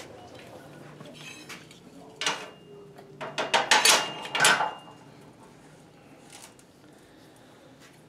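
Metal clanks and knocks of steel bar clamps and angle iron being set and tightened on a steel workbench, clamping sheet steel for a hand bend. A cluster of clanks about three to four and a half seconds in carries a thin ringing tone, and it settles quieter near the end.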